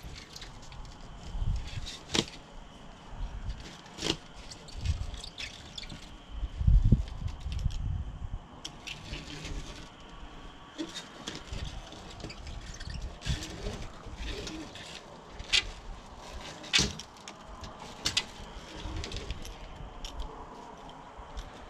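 Screen rolling tool pressing spline into a door-screen frame channel: faint rubbing and handling with scattered sharp clicks and taps, and a few low thuds in the first several seconds.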